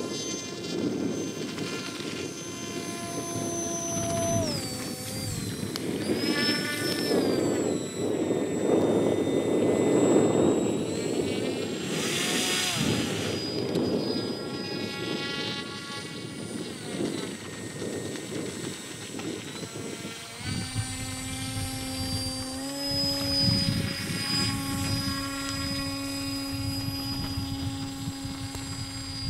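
Electric motors and propellers of radio-controlled models whining, their pitch stepping and gliding up and down with the throttle. About twenty seconds in, a second, lower-pitched motor joins and runs steadily.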